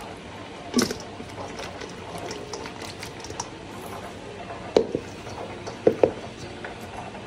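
Sauce-coated fried chicken wings sloshing and sliding wetly in a stainless steel bowl as it is tossed, with scattered clicks and a few sharp knocks against the metal, the loudest late on.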